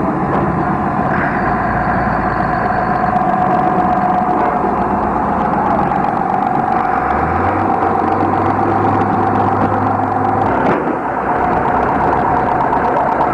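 Vehicle engines running steadily in the pit area of a demolition derby. A deeper engine drone joins about seven seconds in and cuts off about three seconds later.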